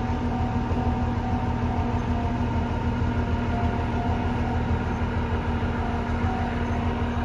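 KiHa E130 series diesel railcar standing with its engine idling: a steady low throb under a constant hum.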